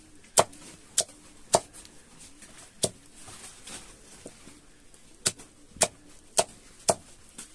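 A heavy knife chopping pumpkin against a wooden block: four sharp chops about half a second apart, a pause of about two seconds, then four more near the end.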